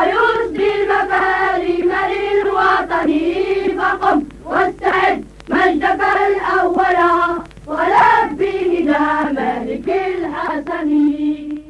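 A children's choir sings an Arabic volunteering song in unison, phrase by phrase, with short breaks between lines. It ends on a long held note.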